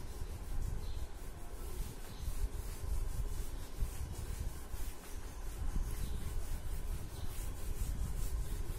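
Blackboard eraser wiping chalk off a blackboard: quick back-and-forth rubbing strokes, several a second, with the dull knock of the hand against the board.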